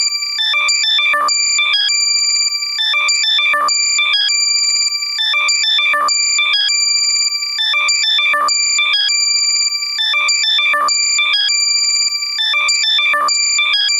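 Loud, heavily compressed electronic alert sound in the left channel only: rapid high-pitched beeps and chirps over steady high tones, the pattern repeating about every two and a half seconds.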